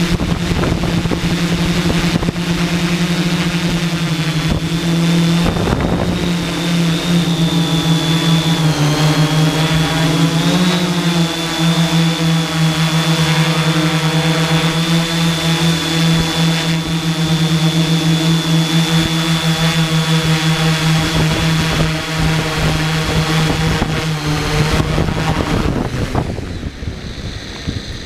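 Hexacopter's electric motors and propellers droning steadily in flight, with a thin high whine over the hum, heard from a camera mounted on the craft. Near the end the motors wind down as it touches down.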